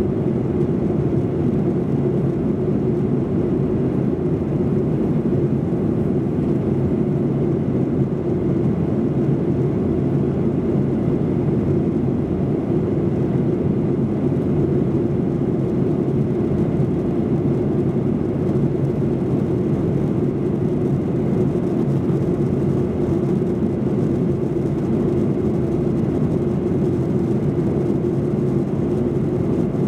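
Steady cabin noise inside a Boeing 737-800 airliner during descent, heard from a rear seat: the rush of airflow and the engines' hum with a constant low drone, unchanging throughout.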